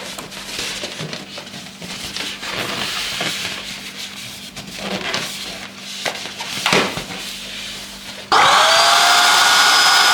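Balloons and materials being handled with rubbing and small knocks, then about eight seconds in an electric balloon pump switches on and runs steadily, its motor whine rising as it spins up, inflating a balloon.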